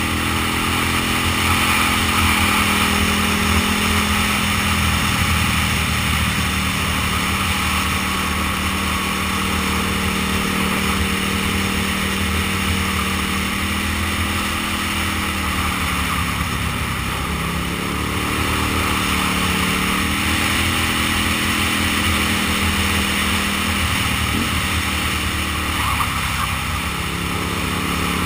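Aprilia Tuono's 60-degree V-twin running steadily at road speed, with rushing wind. The engine pitch drops and climbs back about two thirds of the way through, and again briefly near the end, as the rider eases off and gets back on the throttle.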